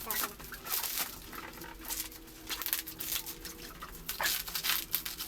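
Packaging being handled during an unboxing: plastic and cardboard rustling and crinkling in irregular bursts.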